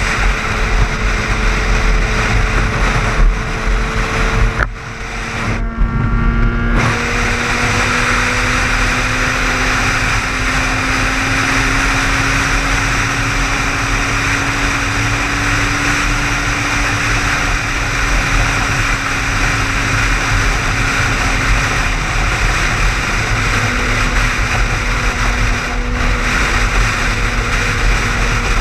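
A car driving at highway speed: steady road and wind noise over a low engine drone that slowly rises and falls in pitch. The noise briefly drops away about five seconds in.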